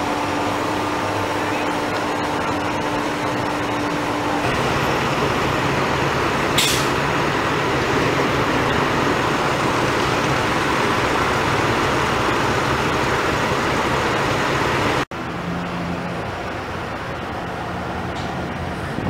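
Diesel engines of utility bucket trucks running steadily, with a brief hiss about six and a half seconds in. After a sudden cut about fifteen seconds in, quieter steady outdoor noise.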